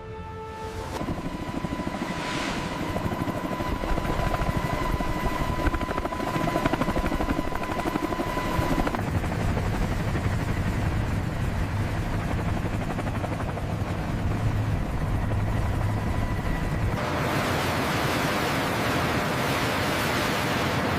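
Steady mechanical drone with a thin high whine running over it. The whine drops out about nine seconds in, and the drone turns harsher and hissier about seventeen seconds in.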